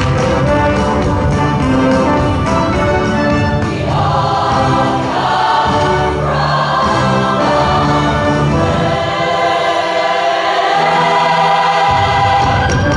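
Women's show choir singing in harmony over a backing band. About nine seconds in, the band's low end drops out for a few seconds, leaving mostly the voices, then comes back near the end.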